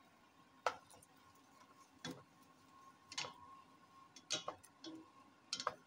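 Spatula knocking and scraping against a stainless steel pot while stirring chicken pieces into masala: about six light, irregular taps, over a faint steady hum.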